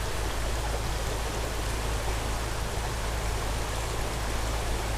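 Small trout creek's water running, a steady even rush with no breaks.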